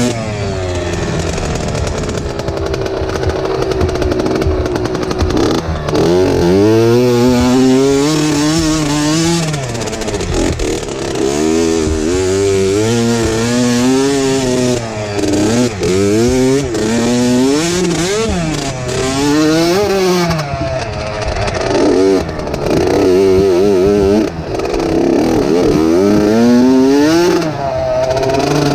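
Dirt bike engine under way on a rough trail, its revs climbing and dropping again every second or two as the throttle is opened and shut.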